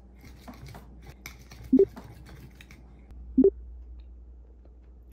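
A knife sawing into a steak on a plate: a run of short faint scraping strokes for the first couple of seconds. Two short, loud pitched blips come out over it, one a little under two seconds in and one about three and a half seconds in.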